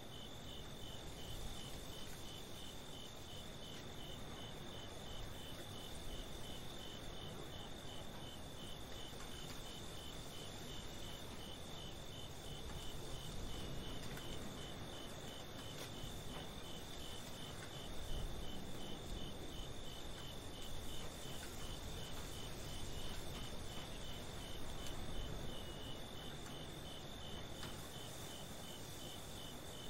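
Night-time crickets chirping in an even, steady rhythm of about two chirps a second, with a continuous high trill behind them, over a low steady background rumble.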